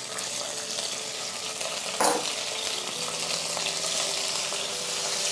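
Hot oil sizzling steadily in a nonstick wok with garlic, dried chillies, soy sauce and vinegar just added, with a single sharp knock about two seconds in.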